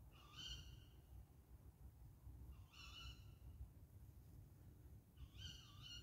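An owl calling three times, each call a hoarse, pitched note under a second long, about two and a half seconds apart, over a low background rumble.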